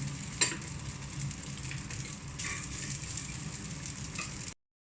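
Pot of fish simmering in a vinegar, oil and broth sauce, boiling with a steady sizzle. A single sharp click about half a second in, and the sound cuts off abruptly near the end.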